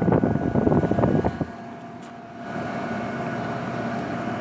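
1981 Emerson Quiet Kool 18,000 BTU window air conditioner running. For about a second and a half there is loud rushing air against the microphone from the unit's discharge. Then it drops suddenly to the unit's steady running hum, with a few held tones from the compressor and fan; the compressor is at full head pressure and sounds healthy.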